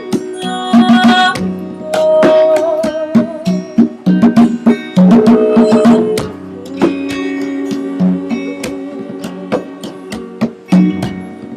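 Live acoustic band music: plucked guitar and hand-drum beats under a flute melody, with one long wavering held note about two seconds in.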